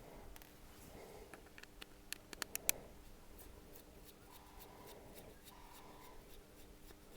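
Faint handling of an opened Samsung Galaxy S5 during disassembly: light rubbing and a quick cluster of small sharp clicks about two to two and a half seconds in, over a faint steady hum.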